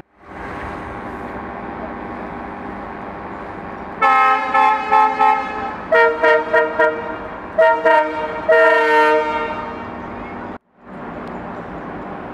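Steady running noise of a moving passenger train. About four seconds in, a locomotive horn sounds: a long blast, then a string of short toots, then a final long blast.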